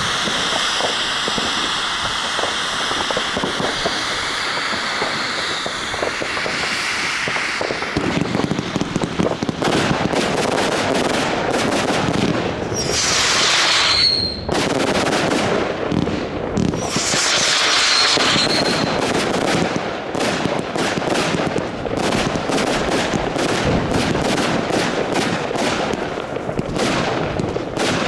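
Consumer fireworks going off. A steady hiss runs for the first several seconds, then from about eight seconds in a dense barrage of rapid shots and bangs follows, with two brief high hissing bursts in the middle.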